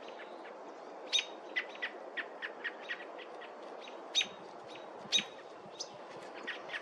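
Bird chirping: a run of short, sharp chirps several times a second, a few of them much louder, over a steady background hiss.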